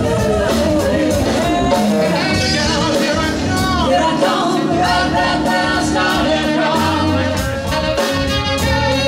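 Live band playing a rock-funk song: electric guitar, drum kit and bass, with singing over it.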